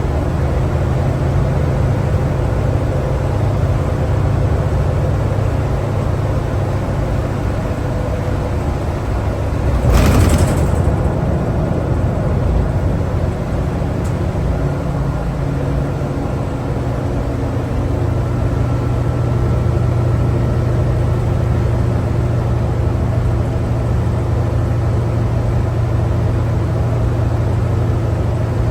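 Cummins ISL9 diesel engine and Allison B500R transmission of a New Flyer D60LFR articulated bus running under way, heard from inside the cabin; the engine note steps in pitch a few times. About ten seconds in comes a short, loud rush of noise, the loudest moment.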